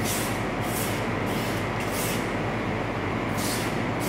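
Knife blade stroked across a wet whetstone, a rasping swish with each stroke, repeated about every half second or so. The strokes are putting the edge back on the blade.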